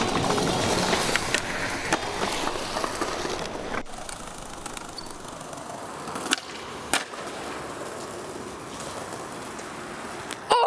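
Skateboard wheels rolling over paving stones, with two sharp clacks of the board about six and seven seconds in.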